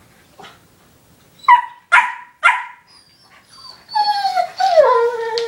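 Black Labrador retriever puppy giving three sharp yips about half a second apart, a second and a half in, then a long whine from about four seconds in that drops in pitch.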